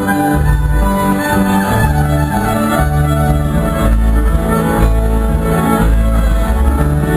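Live band playing an instrumental passage, fiddle and guitar over strong bass notes, during a sound check.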